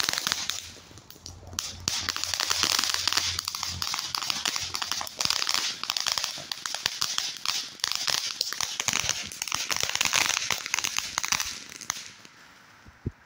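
Ground fountain firework spraying sparks: a steady hiss packed with rapid crackles. It dies away about twelve seconds in, and a single sharp click follows near the end.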